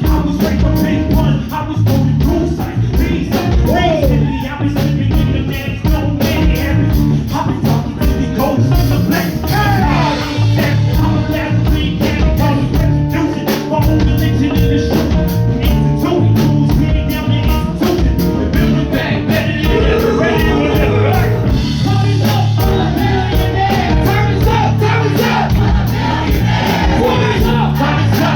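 Live band music with a steady drum beat, and a voice singing or rapping over it.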